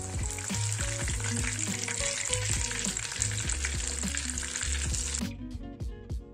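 Breaded sardines (tamban) frying in hot oil in a pan: a steady sizzle that cuts off suddenly about five seconds in.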